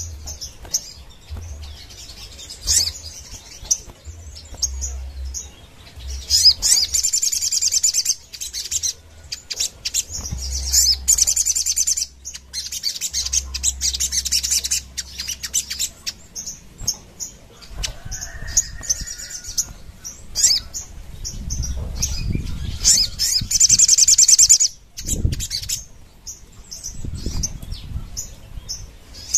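Caged sogon sunbird singing in fast, high-pitched rapid-fire trills: several loud bursts of a second or two each, with short chirps between them.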